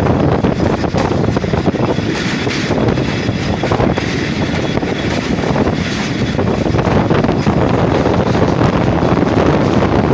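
Passenger train running at speed, heard from an open coach window: a steady rumble of wheels on the track mixed with wind buffeting the microphone.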